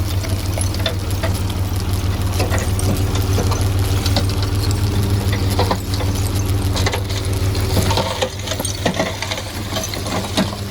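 Heavy diesel engine of construction machinery running steadily, with scattered metallic clinks and knocks over it.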